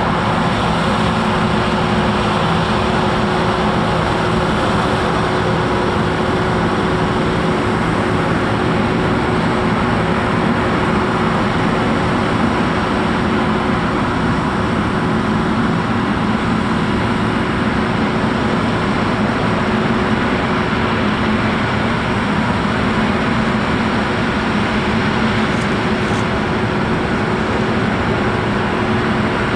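John Deere T660 combine harvester running steadily while harvesting grain, its engine and threshing machinery making a constant drone with a steady hum through it.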